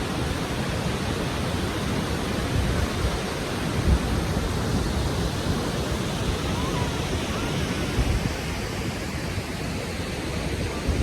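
Steady roar of the Grawa waterfall, a big mountain waterfall heard up close: an even rushing noise, heaviest in the low end, with a couple of brief low bumps about 4 and 8 seconds in.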